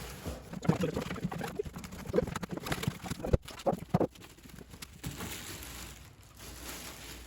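Cardboard PC-case box being opened and handled: a run of knocks and scrapes, the sharpest about three and a half seconds in, then a softer rustling of packing material.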